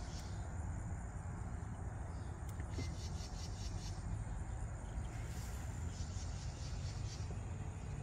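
Insects chirping outdoors in repeated high, pulsed bursts of about a second each, over a steady low rumble.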